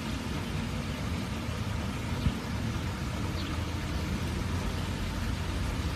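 Steady low rumbling background noise with no clear pitch, and a brief faint tick a little over two seconds in.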